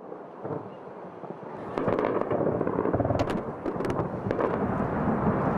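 Distant anti-aircraft gunfire and blasts over a city: a dense crackle of shots with several sharp cracks. It grows louder about two seconds in.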